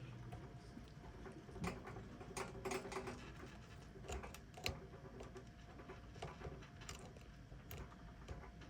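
Scattered small clicks, taps and light knocks at uneven intervals: hands working loose the plastic parts and light-bulb wiring inside a Cuisinart CBK-110 bread maker being taken apart.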